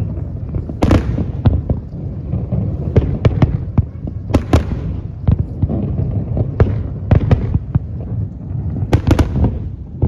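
Fireworks display: sharp bangs and crackles at irregular intervals, a dozen or so, over a continuous low rumble of bursts.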